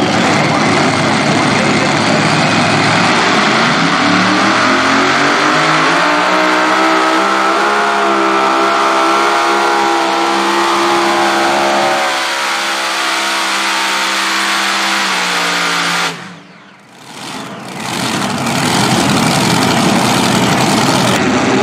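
Multi-engine supercharged super modified pulling tractor running at full power on a pull. The engine pitch climbs over a few seconds, then holds and eases slightly. About sixteen seconds in the sound cuts off suddenly as the run ends, and loud engine noise returns about two seconds later.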